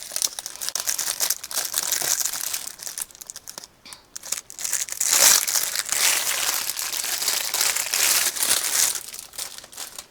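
Plastic squishy packaging crinkling and rustling as it is untwisted and pulled open, with a short lull about four seconds in before picking up again and dying away near the end.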